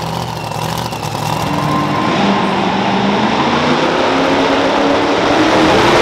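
Super modified two-wheel-drive pulling truck's engine running hard under load, its pitch climbing and its level rising as the truck pulls the weight sled.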